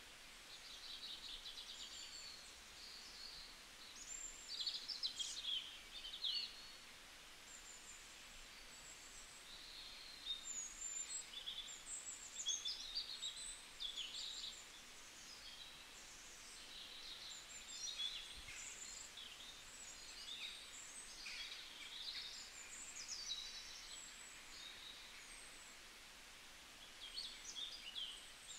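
Small birds chirping and twittering, many short high calls overlapping over a faint steady background hiss.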